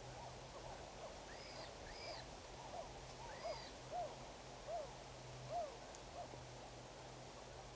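A series of short animal calls, each rising and falling in pitch, repeating roughly once every second through the middle, over fainter calls of the same kind and a steady low hum.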